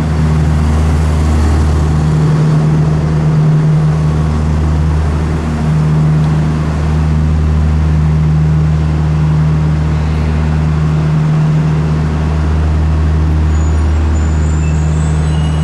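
Talgo VII train at the underground platform, its machinery giving a loud, steady low hum, with faint high squeaks near the end.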